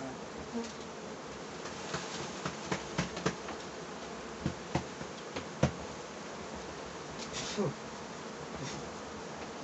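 Honeybees buzzing steadily around an open hive, a continuous hum. Over it come scattered sharp knocks and clicks of the hive's wooden frames and boxes being handled, the loudest a little past halfway.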